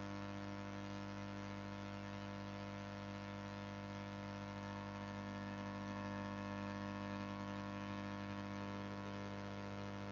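Steady electrical mains hum with a buzz of overtones and a light hiss, unchanging throughout.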